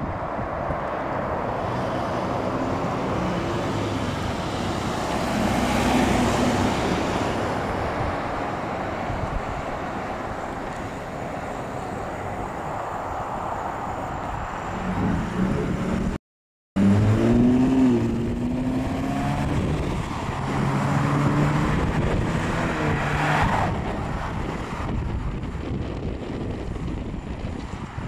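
Road traffic: cars driving past, tyre noise with the hum of engines coming and going as vehicles pass. The sound cuts out completely for about half a second a little past halfway.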